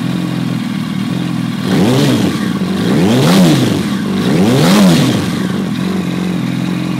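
2008 Yamaha R1's inline-four engine, breathing through a Two Brothers aftermarket exhaust, idling and then revved three times. Each rev rises and falls in pitch, about a second and a half apart, before it settles back to idle.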